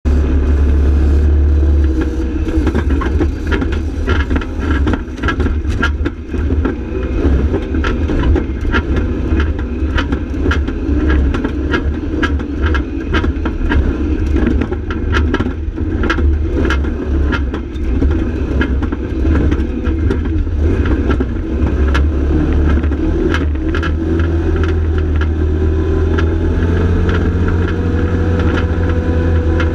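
Arctic Cat side-by-side UTV's engine running under way on a rough dirt trail, with frequent knocks and rattles from the cab and body over bumps. Near the end the engine pitch rises slowly as it speeds up.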